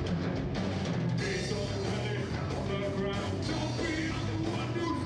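Hard rock band playing live: distorted electric guitar, bass guitar and a drum kit driving a steady beat.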